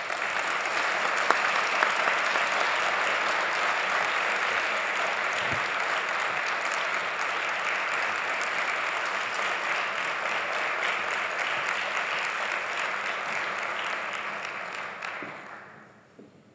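Audience applauding steadily, then dying away over the last second or two.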